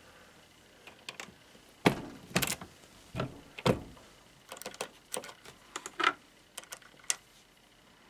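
Metal clicks and clunks from a reloading press and a home-made collet crimping die being worked by hand: the press ram comes down out of the die and the steel crimping bushing is handled. The sharp knocks are scattered, with single ones near two seconds and near four seconds in, and a cluster of lighter clicks in the second half.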